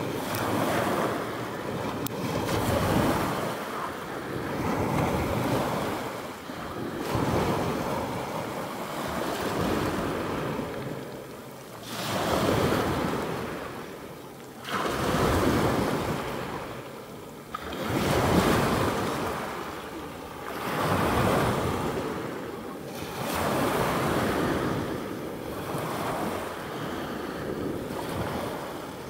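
Sea waves washing up on the shore, the noise swelling and fading about every two to three seconds.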